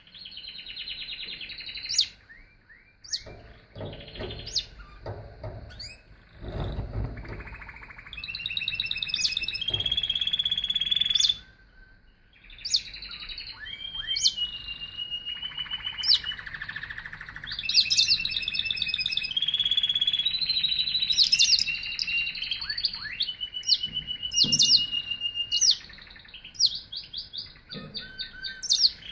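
Domestic canary singing: long phrases of rolling trills and rapid repeated notes, broken by a short pause about twelve seconds in.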